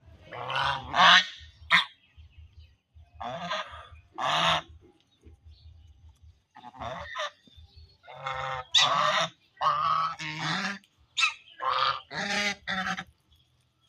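Geese honking: a series of loud, harsh calls about half a second each, coming in clusters of two or three throughout, with short quiet gaps between.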